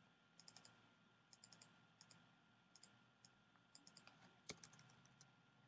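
Faint typing on a computer keyboard: keys tapped in short runs of two or three, with one sharper click about four and a half seconds in.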